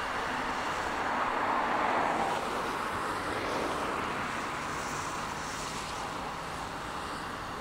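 Steady rushing noise of a distant Boeing KC-767J tanker's twin turbofan engines on landing approach, swelling slightly about two seconds in.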